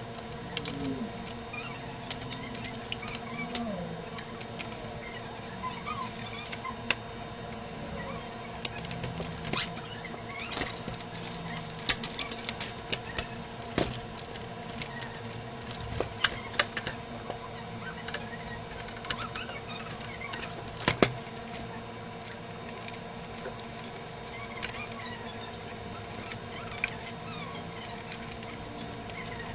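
Scattered clicks and taps of plastic and metal parts being handled, as a Sony CD changer is put back together after a drive belt replacement. A few sharper knocks come in the middle, over a steady hum.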